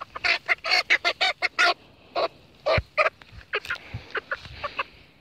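Chickens squawking: a quick run of short, loud calls for about two seconds, then scattered calls.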